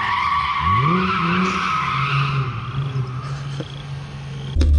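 Drift car's tyres squealing in a steady high tone while the engine revs up, the squeal fading off after about two and a half seconds. Just before the end, a sudden loud low rumble with sharp clicks.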